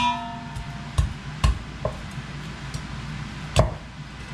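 Cleaver chopping chicken on a cutting board: a sharp clank with a brief metallic ring at the start, then three heavy dull chops at uneven intervals.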